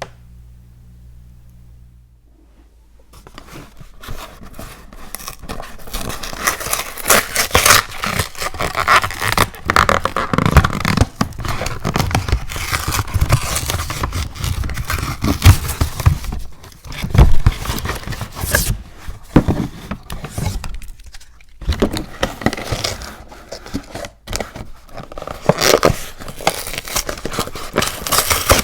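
Close-miked crinkling, scraping and crunching sounds from snack packaging and eating, starting about three seconds in after a faint low hum and running on in dense, uneven bursts of sharp crackles.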